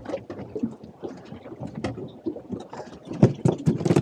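Wind and water noise aboard a small fishing boat at sea, with many irregular knocks and taps on the deck and hull that grow busier and louder about three seconds in.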